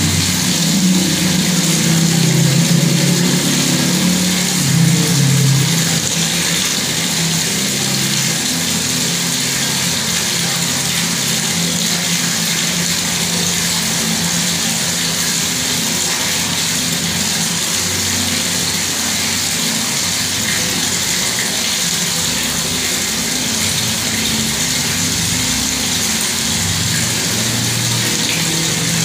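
Bathroom water tap running steadily, a continuous splashing hiss, with a low hum underneath that is strongest in the first few seconds.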